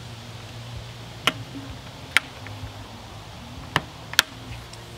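Vinyl trim strip of a Kinro window being pressed by hand into the frame, giving four sharp clicks, two close together near the end, over a faint low steady hum.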